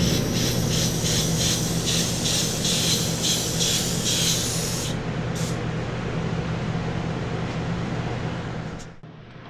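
Airbrush with a 0.5 mm nozzle spraying solvent-based metallic paint: a hiss of air and paint in short pulses, about three a second, that stops about five seconds in, followed by one brief burst. A steady low hum runs underneath.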